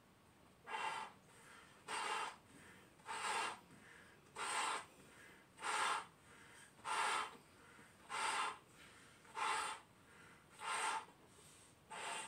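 A man inflating two clear latex balloons by mouth at once, one heart-shaped and one round: a rushing breath about every 1.2 seconds, ten in all, as he breathes in and blows.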